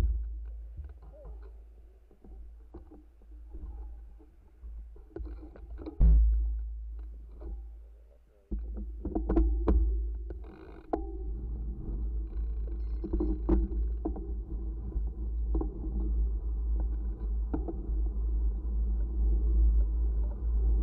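Wind buffeting the microphone of a bike-mounted camera while riding, a low rush that swells and fades, with scattered knocks and rattles from the bike. A sharp thump comes about six seconds in.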